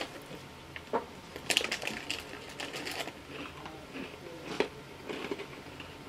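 Small crisp lemon cookies being crunched and chewed, giving irregular crackles and clicks, with a clear plastic snack bag crinkling as well.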